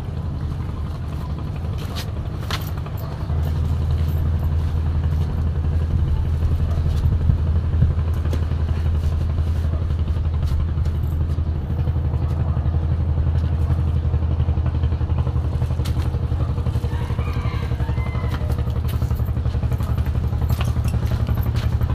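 An engine running steadily nearby, a low droning hum that grows louder about three seconds in, with a few light knocks and clatters early on.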